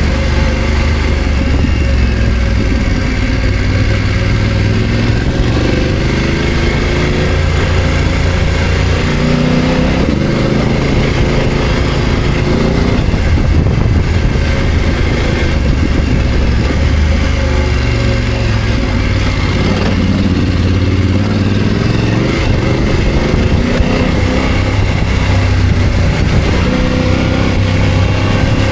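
BMW F900 GS parallel-twin engine pulling the motorcycle along off-road, its revs rising and falling several times as the rider works the throttle.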